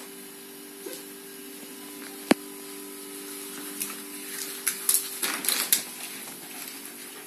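A puppy with paralysed hind legs drags himself across a wooden parquet floor on his front paws. There is a sharp click a couple of seconds in, then a run of scratchy scuffs and clicks from claws and body on the wood, over a steady low hum.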